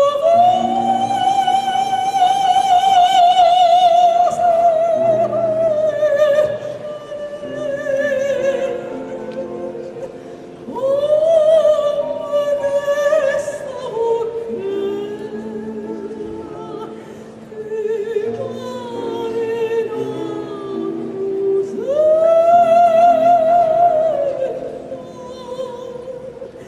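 A woman sings through a microphone with wide vibrato, accompanied by a grand piano. She sings three long phrases, each opening on a high held note that sinks slowly, with piano chords underneath.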